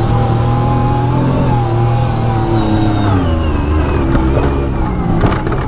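Off-road side-by-side's engine running under way, holding a steady pitch and then dropping in pitch about three seconds in as it eases off, with a few sharp knocks near the end.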